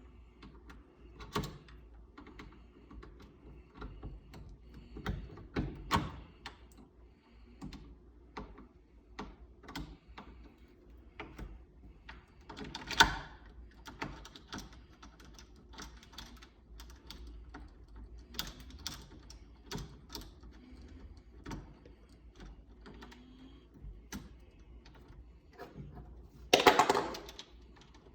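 Irregular small metallic clicks and knocks of door-knob hardware and screws being handled and fitted against a door, with a few sharper knocks and a louder rattling clatter lasting about a second near the end.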